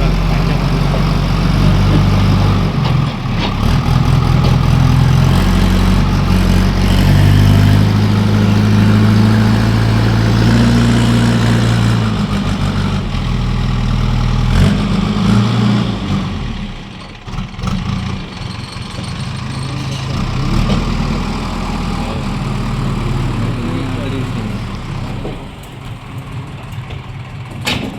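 JCB construction machine's diesel engine running under load, its pitch and loudness shifting several times, then settling to a quieter run about sixteen seconds in.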